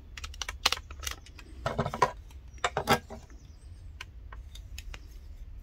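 AA batteries being fitted into a small transistor radio's plastic battery compartment: handling clicks and clattering knocks. The loudest come in clusters near the start, about two seconds in and about three seconds in, followed by lighter ticks.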